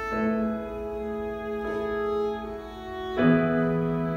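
Live violin and keyboard playing a slow instrumental passage: the violin holds long bowed notes over sustained keyboard chords, with a new chord coming in sharply about three seconds in.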